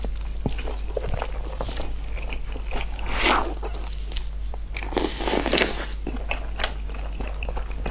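Close-up eating: biting and chewing with many small crunching clicks and wet mouth sounds, and two longer, louder noisy sounds about three and five seconds in.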